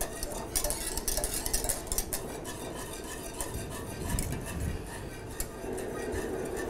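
Wire whisk stirring pastry cream in an aluminium saucepan, its wires clicking and scraping against the sides of the pan in quick, irregular strokes. The cream is thickening with cornstarch as it comes back to the boil.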